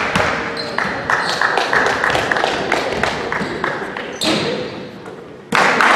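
A basketball being dribbled on a sports hall floor, a few bounces a second, echoing in the hall. Near the end a crowd suddenly starts cheering and clapping loudly.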